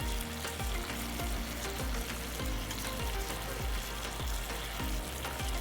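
Chicken breast pieces sizzling steadily as they fry in butter in a non-stick pan.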